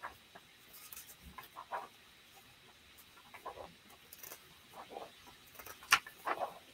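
Comic book pages being flipped by hand: faint, scattered paper rustles and flicks, with one sharper flick near the end.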